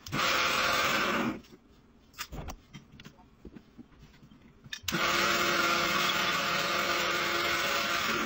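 Small lathe running and turning wood, a steady motor hum with cutting hiss, stopping just over a second in. A few light knocks and clicks follow in the quiet. About five seconds in the lathe starts again and runs steadily.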